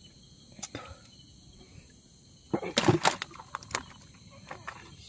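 Steady high-pitched chirring of night crickets and insects. About two and a half seconds in comes a short flurry of loud, sharp knocks and clicks of handling close by, the loudest sound here.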